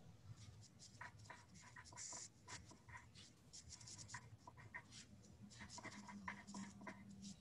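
Faint scratching of writing on paper, in short, irregular strokes.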